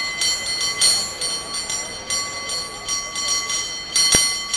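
San Francisco cable car bell rung by hand in a fast, syncopated rhythm, about three or four strikes a second, each ringing with several steady overtones. A sharp, louder knock comes about four seconds in.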